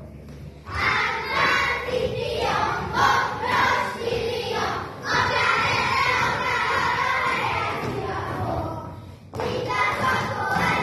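A group of young children singing a folk song together as they dance, with thuds of their steps on the wooden stage floor. There are short pauses between sung lines, one just after the start and one near the end.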